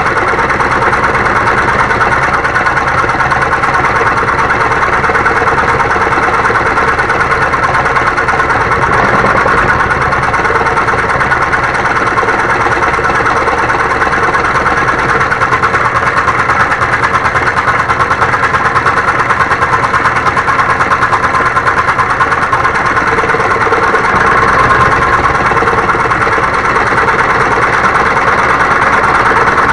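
Homemade scroll saw running steadily, its blade reciprocating in a fast, even buzz.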